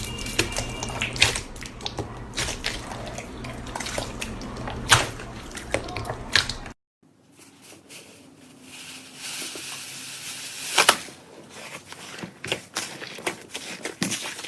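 Slime being squeezed and poked by hand: irregular sticky clicks, pops and crackles. The sound cuts out briefly about seven seconds in, then similar crackling resumes.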